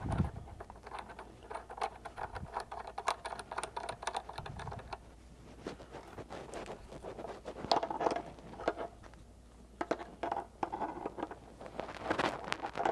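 Irregular small clicks, taps and scrapes of pliers and brass adapter fittings being handled and worked onto the plastic housing of a hot water recirculating pump.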